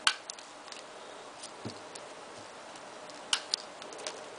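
Wire cutters snipping off stray ends of aviary (chicken) wire: a sharp click right at the start, then two more in quick succession about three and a half seconds in, with a soft knock of handling between.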